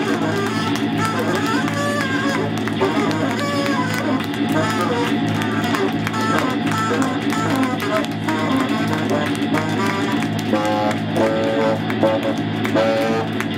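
Live band music: a saxophone plays wandering, bending melodic lines over a steady pulsing low bass drone, with guitar in the mix. From about ten seconds in, the melody breaks into short repeated notes.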